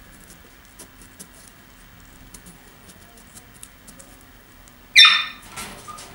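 Faint scratching ticks of a paring knife cutting into a cantaloupe, then about five seconds in a loud, brief squeak from the melon as the carved centre piece is pried out.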